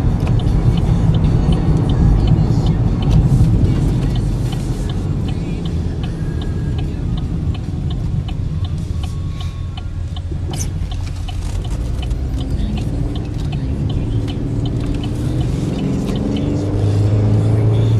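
Road and engine noise inside the cabin of a 2013 GMC Terrain under way: a steady low rumble. A light, regular ticking runs through the first half. In the last few seconds the engine note climbs as the SUV accelerates.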